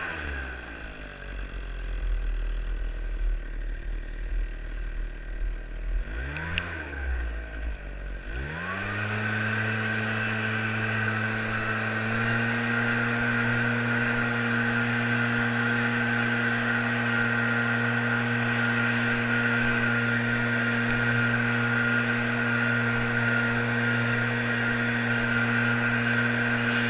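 Small petrol engine of lawn equipment throttled down to idle, blipped briefly about six seconds in, then brought back up to a steady full-throttle run with a constant whine.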